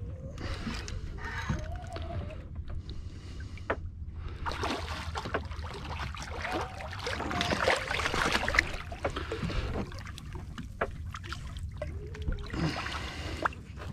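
Water sloshing against a boat's hull over a low, steady rumble, with scattered small knocks.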